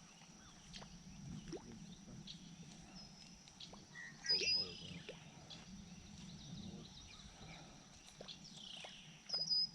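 Faint outdoor background with a few short, high-pitched bird chirps; the loudest come about four seconds in and near the end.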